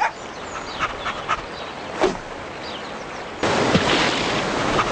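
A few short animal calls, then a sudden loud splashing noise starting about three and a half seconds in.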